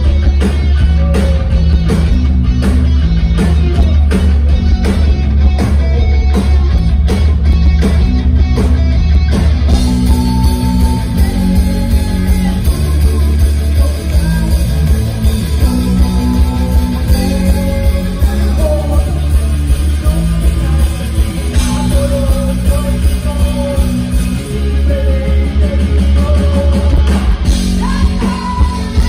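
Live rock band playing loudly: drums, bass guitar and electric guitar, with a woman's lead vocal in Spanish coming in about a third of the way through.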